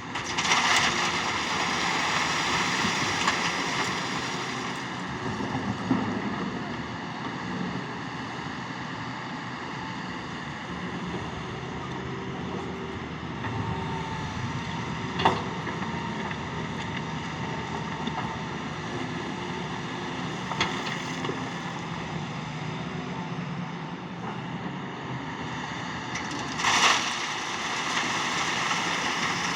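Excavator running with a steady engine drone and a high whine over it, louder in the first few seconds. A sharp clank comes about halfway through, and a brief rush of noise near the end.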